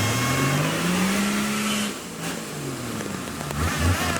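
Toyota Land Cruiser engine revving hard under load off-road. It climbs steadily for about two seconds, drops off suddenly, then gives a couple of quick blips of the throttle near the end.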